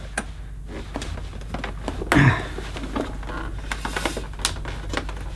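Irregular plastic clicks and knocks from hands working the hose connector of a Dyson DC11 canister vacuum, trying to release and pull the hose off; it proves tricky to remove.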